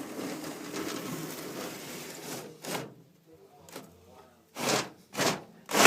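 Old wooden sash window sliding in its frame with a continuous wood-on-wood scrape, followed by four short knocks, the last the loudest.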